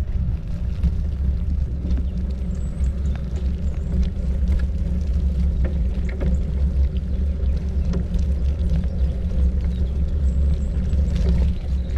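Heavy, steady wind rumble on the microphone while moving along a road, with faint clicks and rattles over it.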